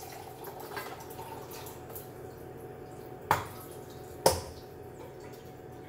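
Water trickling into an emptied soup can as it is rinsed out, with two sharp metallic clinks about a second apart a little past the middle.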